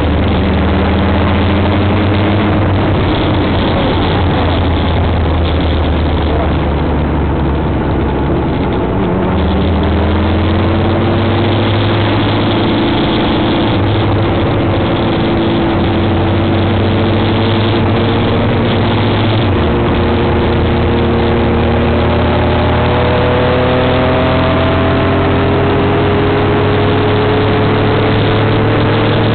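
Motorcycle engine running under way, with a dense rush of wind and road noise. The engine note drops about nine seconds in, then climbs slowly and steadily for the rest as the bike picks up speed.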